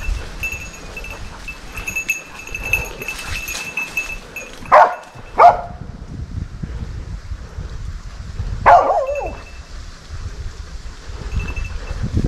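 Hunting dog barking three times: two sharp barks close together about halfway through, then a longer bark that wavers and falls a few seconds later.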